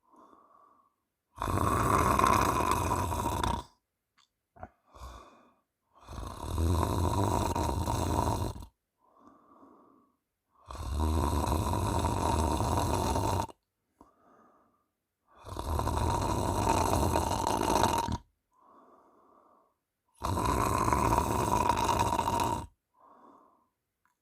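A woman snoring loudly in her sleep: five long snores, each two to three seconds, coming about every four to five seconds, with faint breaths between them.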